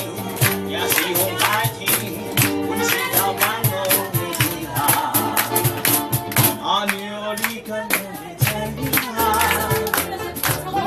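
Ukulele ensemble strumming a song with a steady, even beat over held low bass notes, with some singing.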